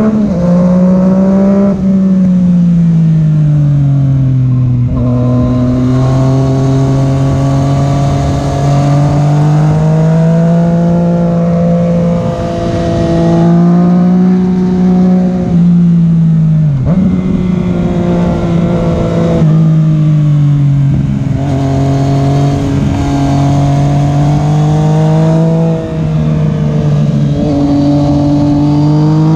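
Yamaha FZ-09's three-cylinder engine running under way, its pitch rising and falling with the throttle as the bike rides through curves. The pitch slides down steadily between about two and five seconds in and drops sharply about seventeen seconds in, with steady wind and road noise beneath.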